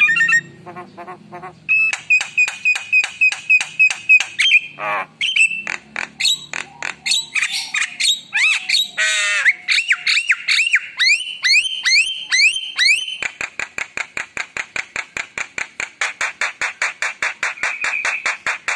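Javan myna singing a loud, varied song of rapid repeated notes, trills and falling whistles, full of mimicked phrases. Near the end it breaks into a long fast run of clipped notes, about five a second.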